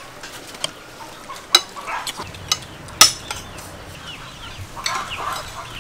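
Metal spoons clinking against ceramic soup bowls and plates while people eat, several sharp clinks, the loudest about three seconds in.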